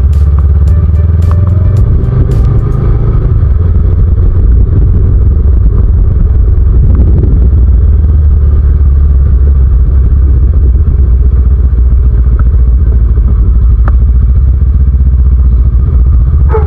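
Motorcycle riding along a town street, heard as a heavy, steady low rumble of engine and wind on the microphone, with a few sharp ticks in the first three seconds.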